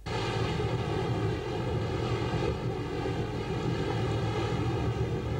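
Fishing boat's diesel engine running steadily under way, a constant drone with the rush of wind and rough sea over it. It cuts in suddenly.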